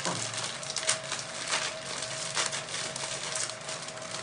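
Thin plastic bag of paper coffee filters crinkling and rustling as it is handled, in separate crinkles about once a second, over a steady background hiss.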